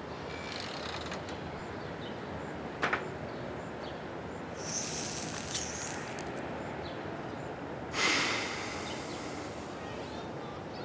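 A crackling drag on a cigarette lasting about a second and a half, then, a couple of seconds later, a breathy exhale of smoke that fades out, over a steady outdoor background hiss. A short sharp double click comes near the start.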